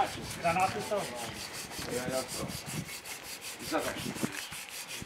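Hand sanding of a yacht's wooden trim with a sanding pad: quick, even back-and-forth rubbing strokes.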